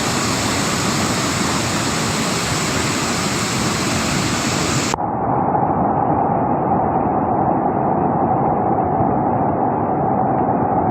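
Heavy floodwater rushing, a loud steady noise. About five seconds in, it cuts abruptly to a duller, more muffled recording of the same kind of rushing noise.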